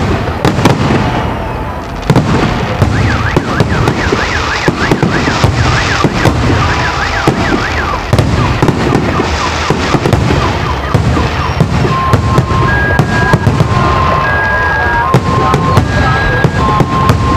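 Fireworks display going off in dense volleys of bangs and crackles. An electronic alarm sounds over them: a fast warbling wail a few seconds in, then alternating two-tone beeps from about two thirds of the way through.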